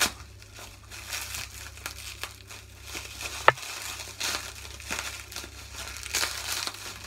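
Packaging crinkling and rustling in irregular handfuls as items are handled and unwrapped from a box, with one sharp click about halfway through.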